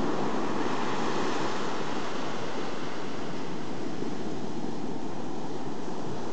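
Arabian Sea surf: a steady rush of waves breaking and washing in.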